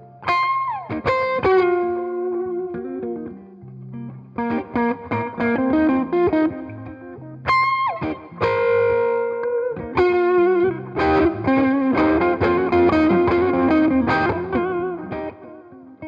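1980 Greco EG-500 Les Paul-style electric guitar with Maxon humbucker pickups, played through an amplifier in a tone test. Single-note lead phrases with string bends and held notes, which get busier in the second half.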